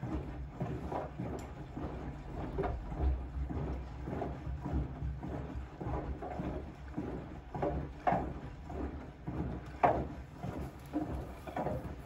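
Siemens front-loading washing machine in its wash cycle: the drum turns slowly and a soaked pillow sloshes and flops in soapy water about once a second, over a steady low hum.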